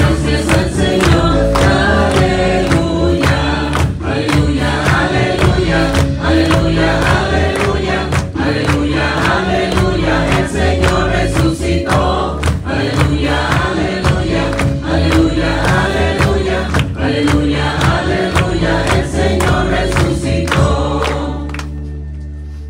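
A group of voices singing a church hymn with instrumental accompaniment. The singing stops near the end, leaving a held low chord that fades out.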